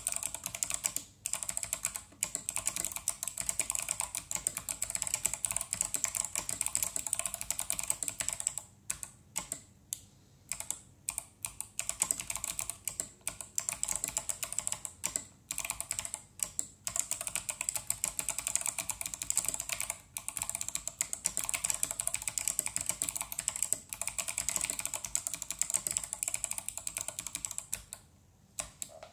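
Steady typing on a mechanical keyboard with clicky Kailh Box Navy switches and SA profile keycaps on an aluminium plate, a thocky sound; rapid runs of keystrokes, twice slowing to separate strokes, and stopping shortly before the end.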